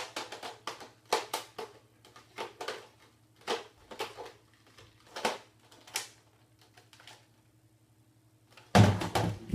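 Plastic Nerf blaster being handled: irregular clicks and clacks, then a louder thump near the end.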